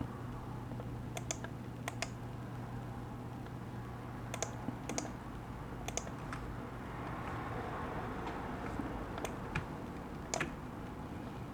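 Scattered, irregular clicks at a computer, about ten of them, like keys or a mouse being pressed while someone works. A faint low hum runs beneath and fades about two-thirds of the way through.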